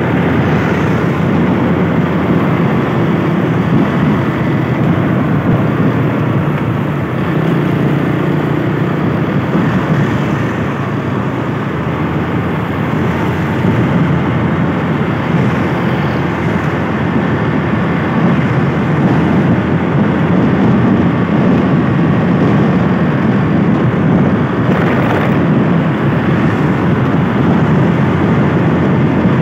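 Steady loud rush of wind and road noise while riding a motorcycle in traffic, the wind buffeting the microphone.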